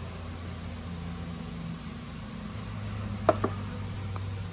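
Two quick, sharp knocks of hard plastic being handled, about three seconds in, over a steady low hum.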